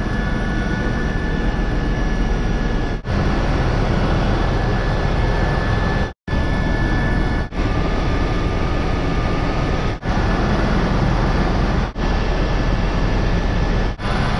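Helicopter cabin noise in flight: a loud, steady deep rumble of the engine and rotor with a thin steady whine above it, broken by several brief dropouts.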